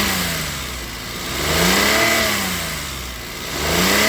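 Maruti Suzuki Alto 800's 796 cc three-cylinder petrol engine, freshly rebuilt with a new crankshaft and connecting-rod bearings, revved up and let fall back about every two seconds. It runs smoothly without the earlier connecting-rod knock, completely silent by the mechanic's account.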